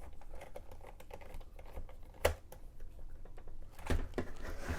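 Light ticking and small clicks of a precision screwdriver driving a screw back into a laptop's plastic case, with one sharper click about two seconds in and a few more near the end.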